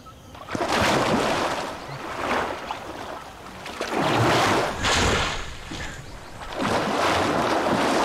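Water splashing and churning as male Nile crocodiles thrash and fight in a river, coming in three long surges. The males are fighting over a stretch of river in the mating season.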